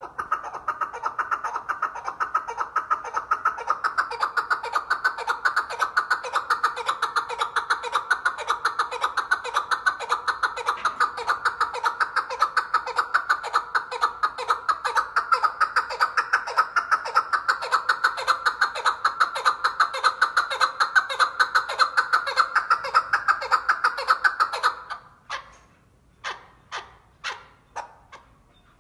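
Chukar partridge giving its rallying call: a long run of fast, rapidly repeated notes that slows after about 25 seconds to separate notes about two a second.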